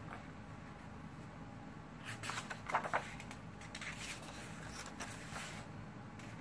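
Heavy paper pages of a hardcover coloring journal being handled and turned: soft rustles and short crackles of paper, loudest about two to three seconds in, with a few lighter ones later.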